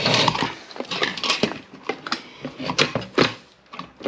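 Irregular clicks and knocks of plastic and metal fuel-pump parts being handled and fitted together as the pump assembly is put back together.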